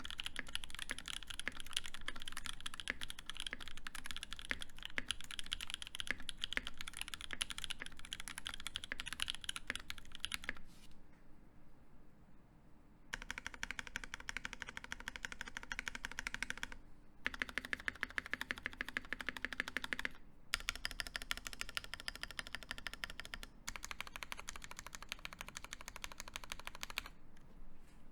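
Fast typing on a D65 mechanical keyboard with lubed NK Cream linear switches, an aluminium plate and GMK keycaps: a dense, continuous patter of keystrokes. The typing drops away for about two seconds around eleven seconds in. It then comes back in several short runs with brief breaks between them.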